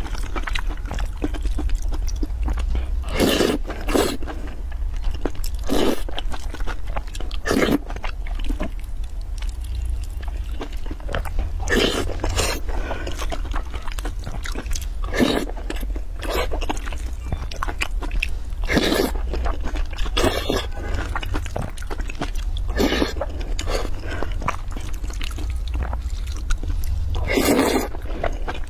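Close-miked eating: chewing and biting through mouthfuls of braised eggplant, green peppers and noodles, with a wooden spoon scraping and knocking against a glass bowl. About a dozen sharp, loud mouth and spoon sounds come at irregular intervals over a steady low hum.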